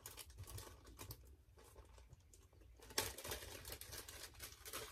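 Packaging being handled and rummaged through on a tabletop: irregular rustling and light clicks, with a sharper knock about three seconds in.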